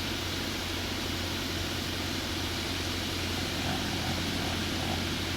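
Single-cylinder two-stroke Ural chainsaw engine running steadily as the power unit of a homemade mini motor-towing sled, an even hum without revving.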